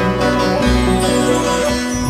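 Instrumental music: a plucked string melody over a steady bass, the introduction of a Turkish folk-style song.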